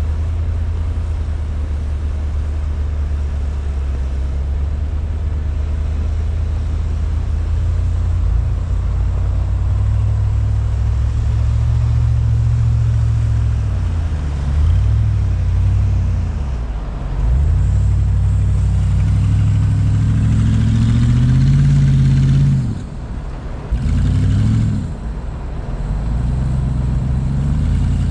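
Off-road vehicle engine running steadily, then revving up and down repeatedly, with the revs dropping away sharply several times in the second half.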